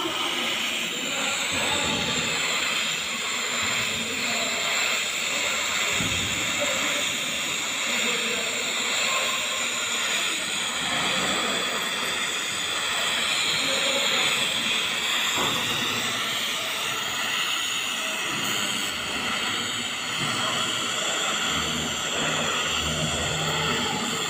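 TIG welding torch arcing on a pipe joint: a steady, even hiss.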